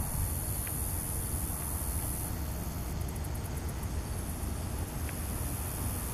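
Insects trilling in a high, steady buzz that breaks off for about a second near the middle and picks up again with quick pulses, over a low, constant rumble.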